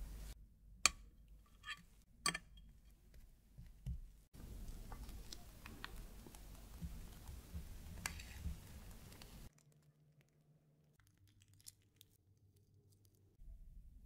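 A few light clicks of a metal fork against a ceramic dish as ladyfingers are pressed into the cream. Then several seconds of soft squishing as mascarpone cream is squeezed from a piping bag, and a few seconds of near quiet. Near the end comes the soft scrape of a silicone spatula spreading the cream.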